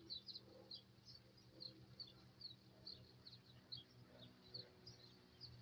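Faint bird chirps: short, high, slightly falling notes repeated about two or three times a second, over a low steady hum.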